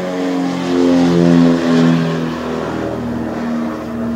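Piper Seneca's twin Continental TSIO-360 engines and propellers running as it flies overhead, loudest about a second or two in. After that the pitch drops a little and the sound fades as it moves away.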